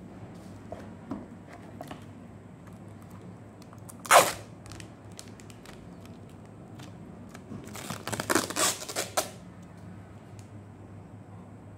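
Thin clear plastic wrapping crackling as a small TV box is handled and slid out of its bag: one sharp crackle about four seconds in, then a cluster of crackles between about eight and nine seconds in.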